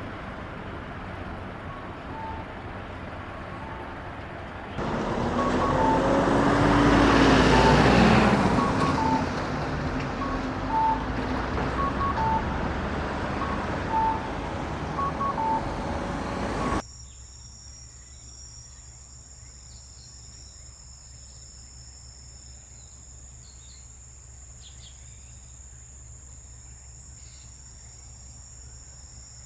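A motor vehicle passes on a road, swelling and fading, over a string of short electronic beeps about once a second. It then cuts abruptly to a steady high chirring of insects, such as crickets.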